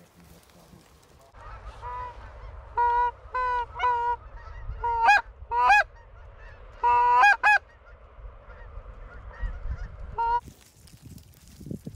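Canada goose honking: about a dozen loud honks over some nine seconds, single ones and quick runs, several breaking sharply up in pitch at the end like a two-note "ha-ronk".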